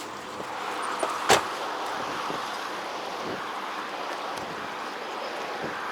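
Steady road traffic noise, with one sharp knock about a second in.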